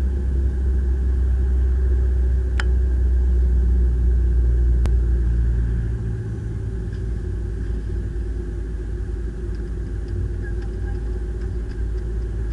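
Car engine and tyre noise heard from inside the cabin while driving: a steady low rumble that eases slightly about halfway through. Two sharp clicks in the first half.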